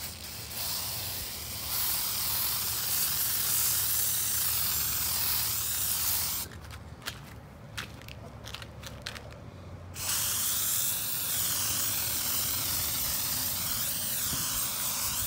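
Aerosol spray paint can spraying in two long bursts of hiss, about six and five seconds long, with a pause of about three and a half seconds between them that holds a few light clicks.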